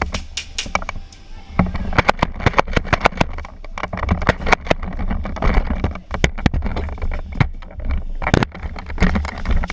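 Airsoft gunfire during a game: many sharp, irregular cracks and snaps in quick succession, over a steady low rumble on the microphone.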